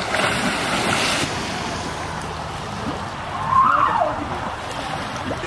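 Steady rush of water-park water, louder for the first second or so, with a voice calling out once briefly about three and a half seconds in.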